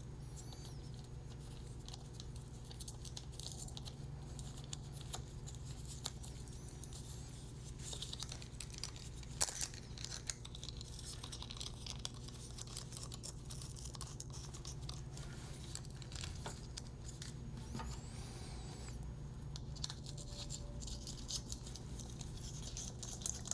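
Quiet handling noise of small parts being fitted onto a microphone stereo bar: scattered clicks, rustles and scrapes, with one sharper click about nine seconds in, over a steady low hum.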